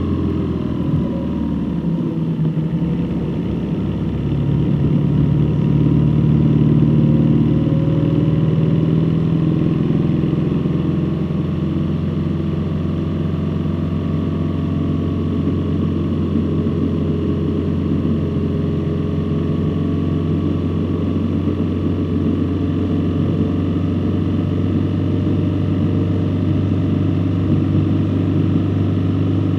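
A vehicle's engine running while driving, with road noise. Its pitch shifts over the first few seconds, then holds at a steady drone.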